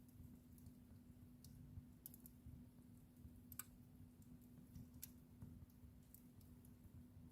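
Wood fire crackling faintly: irregular sharp pops and ticks, the strongest about three and a half seconds in, over a low steady rumble.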